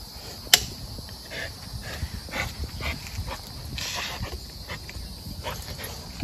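Two American Bully puppies scuffling and sniffing at each other on brick pavers: short scattered snuffles and paw scrapes, with one sharp click about half a second in.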